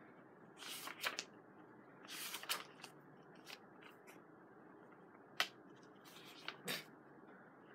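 Pages of a handmade junk journal of vintage papers and card being turned and handled: a series of faint paper rustles and flicks, with one sharper snap about five seconds in.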